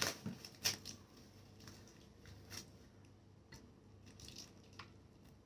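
Quiet handling noises from a newly unboxed glass oil bottle: two sharp clicks in the first second, then scattered faint clicks and light rustling.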